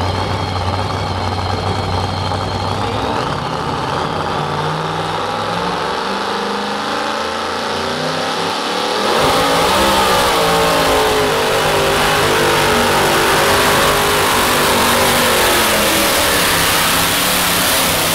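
Supercharged V8 of a modified two-wheel-drive pulling truck, running low and steady at first, then revving up as the pull begins. From about nine seconds in it runs at full throttle and louder while dragging the sled.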